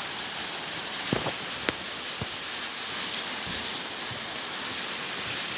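Steady hiss of rain falling, with a few short, sharp clicks in the first two seconds.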